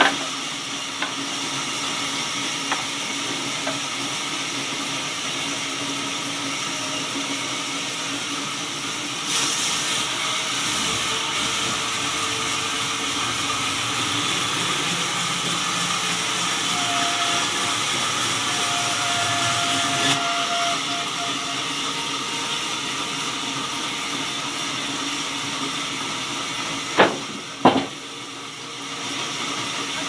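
Belt-driven band sawmill running and cutting a jackfruit log: a steady hissing machine noise that grows louder and brighter from about nine seconds in until about twenty seconds. Two sharp knocks come close together near the end.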